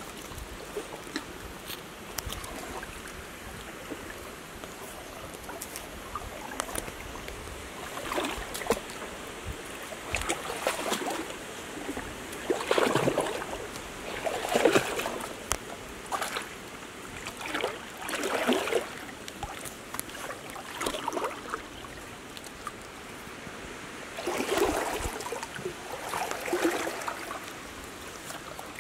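Shallow muddy water splashing and trickling in irregular bursts as hands work in it at the stream's edge.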